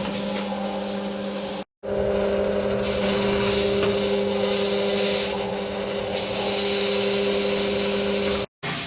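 Coconut sap cooking machine running: a steady mechanical hum with a hissing noise over it. The sound cuts out abruptly for a moment twice.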